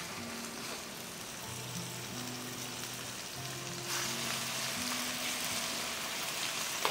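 Pounded chicken breast fillets searing in hot olive oil, a steady sizzle that grows louder about four seconds in as a second fillet is laid into the pan. Soft background music with sustained low notes plays underneath.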